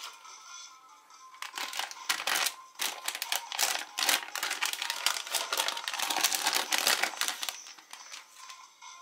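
Foil blind-bag packet crinkling and crackling as it is handled and torn open, from about one and a half seconds in until near the end.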